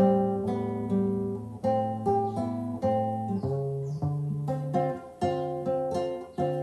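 Acoustic guitar playing the instrumental intro to the song, picked chords ringing, with a new chord about every half second to a second.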